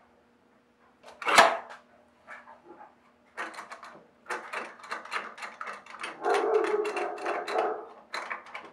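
Bar clamps and boards handled during a panel glue-up: a sharp knock about a second in, then a long run of clicks and clatters.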